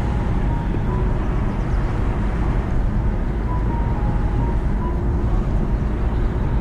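Steady low rumble of a car driving, road and engine noise heard from inside the car, with faint music notes over it.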